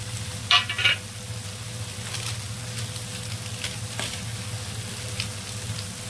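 Black nightshade berries and tomato frying in oil in a kadai, a steady sizzle with scattered faint crackles over a low hum. One brief louder sound about half a second in.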